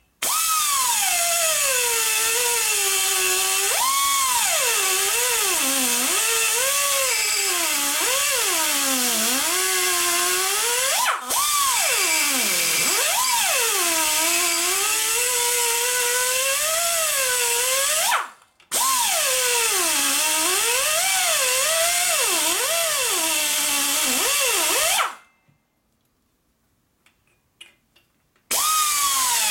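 Air die grinder with a small carbide burr cutting weld on an aluminum Harley-Davidson Panhead cylinder head. The high whine rises and dips as the burr bites and the tool is eased off. It stops for a moment about 18 seconds in and for about three seconds near the end, then starts again.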